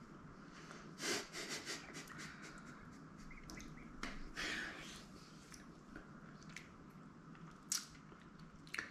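Quiet eating sounds: soft breaths and sniffs, with a few light clicks and rubs of a spoon and a plastic cup.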